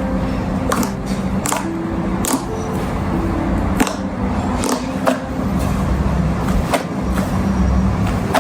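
Slime being squished and pressed by hand, giving irregular sharp clicks and pops, over soft background music.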